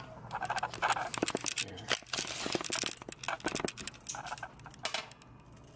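Handling noise from a retractable tape measure being pulled out and laid across the archtop guitar's top: irregular clicks, taps and short scrapes, settling down near the end.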